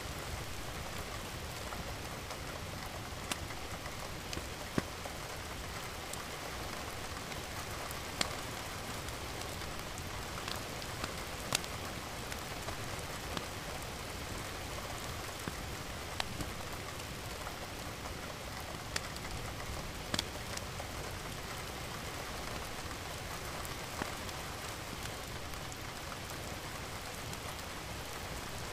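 Steady rain falling, an even hiss with scattered sharp taps of single drops striking a surface.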